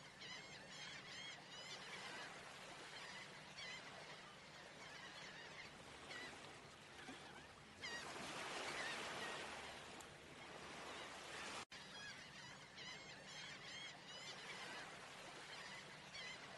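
Faint outdoor ambience of birds chirping over a steady hiss. About eight seconds in, a louder rushing noise takes over for a few seconds, then breaks off abruptly and the chirping returns.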